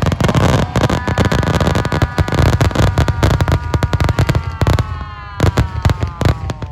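Fireworks going off in a rapid barrage, many sharp bangs and crackles a second. Steady whistling tones run underneath and slide slowly lower near the end.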